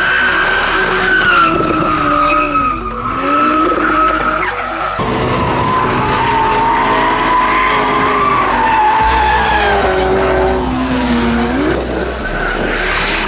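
Drift cars' engines revving up and down hard while their rear tyres spin, skid and squeal. The sound changes abruptly about five seconds in and again near the end.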